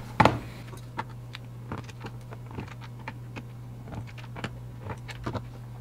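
Fluke 77 multimeter's plastic case being handled and its back screws taken out: scattered light clicks and taps, the loudest just after the start, over a steady low hum.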